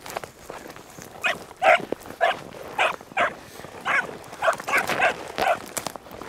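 Young beagle pup baying in a string of about ten short, quick yelps, starting about a second in: she is giving tongue on a rabbit's scent trail.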